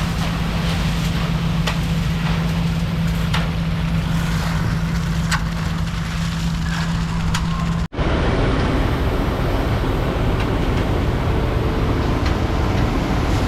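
Heavy engine running steadily with a constant hum and scattered sharp knocks. An abrupt cut about eight seconds in switches to a rougher, noisier engine rumble without the hum.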